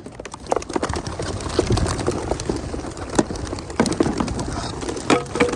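A crateful of young homing pigeons taking off together: a rapid, irregular clatter of flapping wings, with a few sharper knocks.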